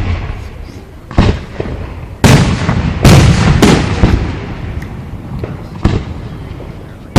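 Fireworks show: aerial shells bursting in loud booms, about a second in, twice in quick succession around three seconds, and again near six seconds, each trailing off in a long rumbling echo, with smaller crackles between.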